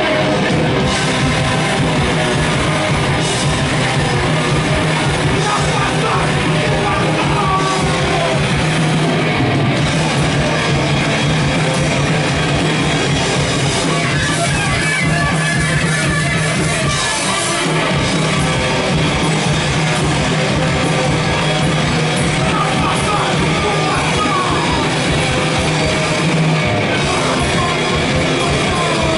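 A live rock band playing loud and without a break: electric guitars, bass guitar and drum kit, with a singer yelling the vocals into the microphone.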